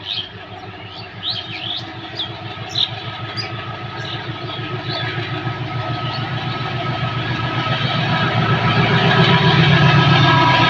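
Diesel engines of a WDG6G-led freight locomotive consist, a deep pulsing drone growing steadily louder as the train approaches at speed.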